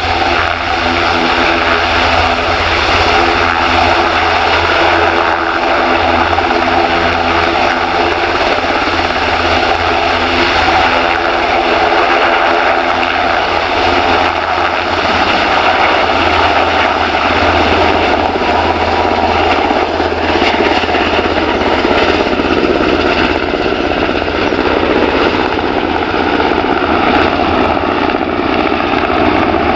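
Sikorsky S-92A helicopter's twin turboshaft engines and main rotor running loud and steady as it hovers low and then flies off and climbs away. A layer of steady whining tones fades out about halfway through, leaving a broader roar.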